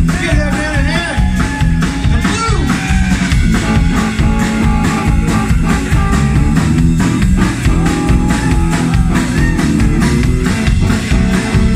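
Live blues band playing: electric guitar with gliding, bent notes over bass guitar and drums.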